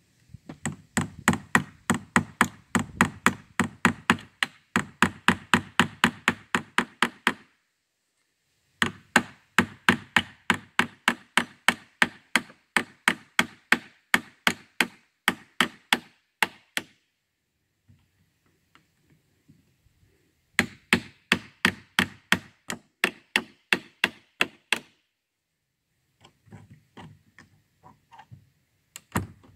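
A hammer pounding on wood in fast, even runs of about three to four blows a second: three long runs with short pauses between them, then a few scattered lighter blows near the end.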